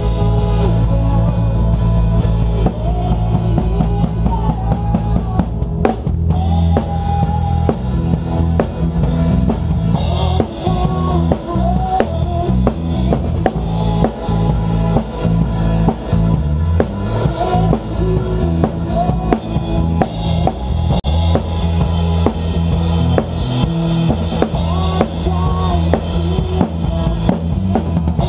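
Live worship band playing, heard from right at the drum kit: the kick drum and snare beat steadily and loudly over bass and other band instruments.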